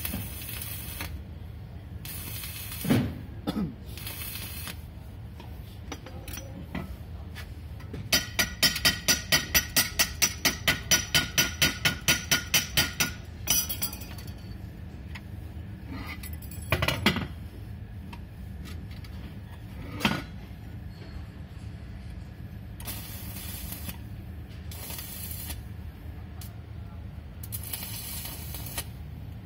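A rapid run of ringing metal-on-metal taps, about five a second for some five seconds, with a few single knocks and short scraping hisses before and after, over a steady low hum.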